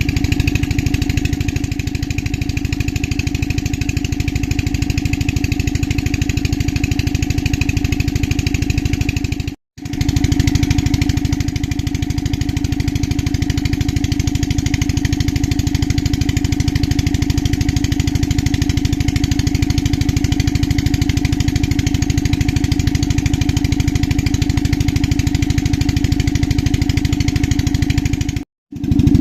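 A steady engine drone with a fast, even pulse that holds the same pitch throughout. It drops out abruptly for a moment twice, about ten seconds in and near the end.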